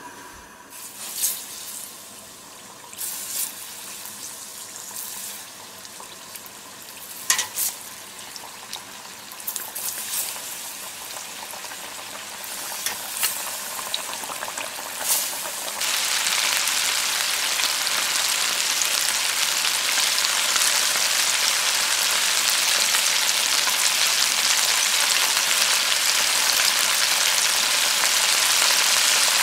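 Chicken karaage deep-frying in a pot of oil, sizzling. At first the sizzle is moderate with scattered sharp pops; about halfway through it jumps suddenly to a loud, steady sizzle.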